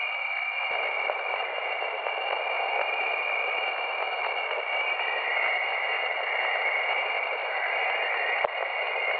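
Jupiter's radio emissions played as sound: a steady hiss of static with steady tones riding on top, and a band of noise that dips slightly lower in pitch about five seconds in. A single click comes near the end.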